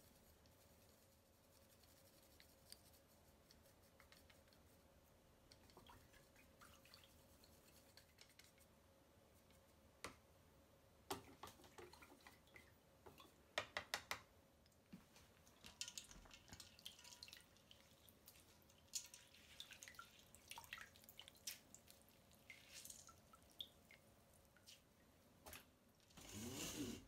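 Quiet kitchen sounds: scattered light clicks of wooden chopsticks against a metal ladle and a plastic container while mixing mustard into dipping broth, with a quick cluster of taps about halfway through. Near the end comes a short burst of water splashing as hands work in a steel bowl of ice water.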